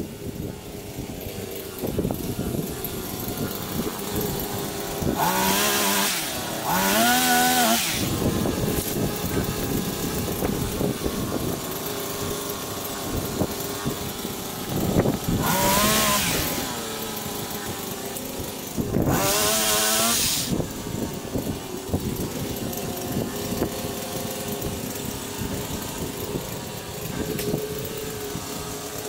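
Pole chainsaw cutting tree branches, revving hard in three bursts whose pitch rises and sags as the chain works, over a steady running hum.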